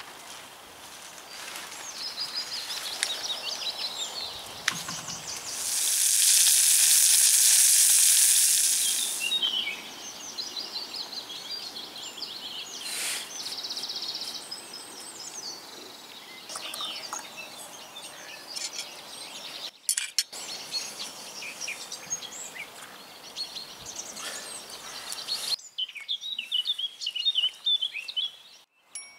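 Songbirds singing steadily, with a loud sizzling hiss lasting about three seconds some six seconds in.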